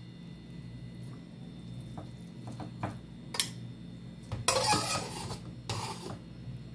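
A metal serving utensil clinks and scrapes against a metal cooking pot as sauced spaghetti is lifted out to serve. There are a few light clicks, then two longer, louder scrapes about four and a half and six seconds in.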